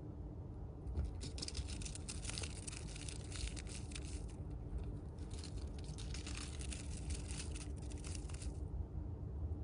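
Siberian chipmunk chewing and nibbling tissue paper held in its mouth: fast, crisp crackling and tearing of the paper in two spells of about three and a half seconds, with a short pause between them.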